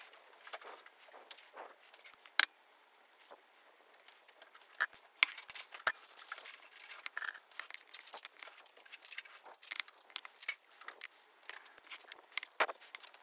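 Chopsticks and a fork clicking and tapping against a ceramic plate and a wooden bento box as food is picked up and set in place: scattered small clicks, with a few sharper ones.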